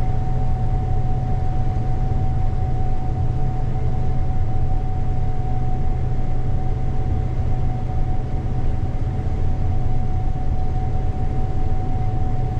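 Gleaner combine running steadily, heard from inside the cab: a constant low engine drone with a steady high whine over it.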